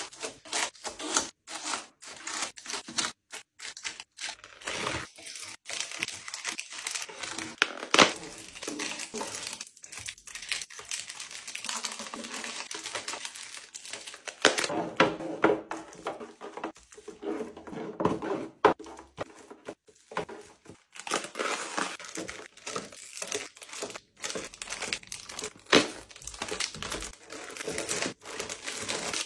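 Foil and plastic snack wrappers crinkling, with irregular light taps and clicks as packs are set into a plastic drawer organiser; one sharper tap about eight seconds in.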